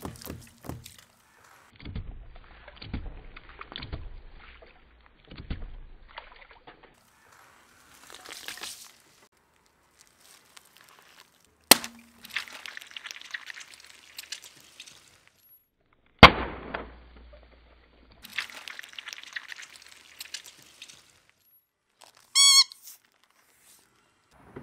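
Objects crushed under a car's tyres: stretches of crackling and crunching, then two sharp bangs about four seconds apart, each followed by crackle, and a short squeaky tone near the end.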